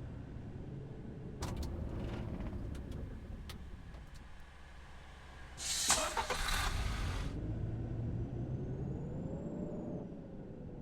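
Off-road vehicle engine running, its pitch rising and falling as the throttle changes, with a few knocks about a second and a half in. About six seconds in comes a loud rushing hiss lasting a second and a half.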